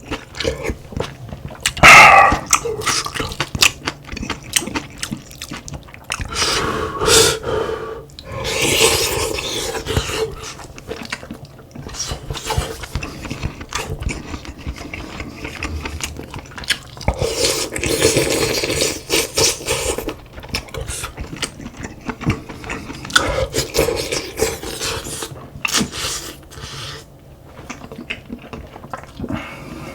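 A person eating close to the microphone: chewing, with many short clicks of spoon and chopsticks and a few longer spells of slurping cod-head stew broth.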